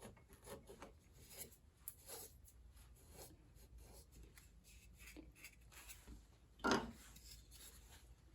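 A chisel paring a wooden plug flush in the side of a piano key: a series of short, irregular scraping cuts across the wood grain, with one louder stroke about two-thirds of the way through.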